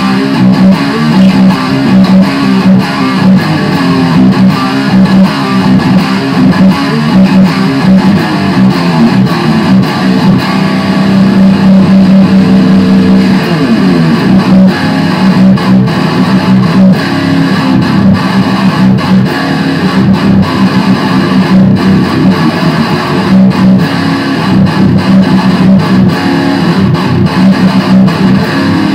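Epiphone SG Special electric guitar played loud and distorted through a Line 6 Spider III amp: improvised heavy-metal riffing, fast picked notes over ringing low notes, without a break.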